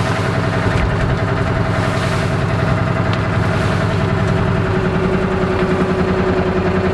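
Kawasaki Mule utility vehicle's engine running steadily, heard from inside the vehicle. About five seconds in, its note changes and settles as the vehicle slows.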